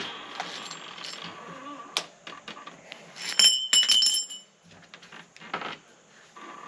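Small metal lock parts and screws clinking together with a bright ringing, several quick strikes about three and a half seconds in, amid scattered clicks and handling knocks as the old deadbolt is taken off the door.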